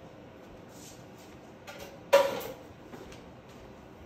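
A metal whisk or spoon clanks once against a saucepan, with a short ring, about halfway through, among a few lighter clinks and knocks.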